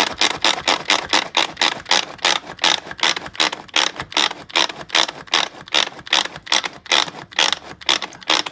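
Pampered Chef manual food processor worked by its pull cord: a quick, even series of ratcheting strokes, about four a second, as the spinning blades chop and blend an avocado dip in the bowl.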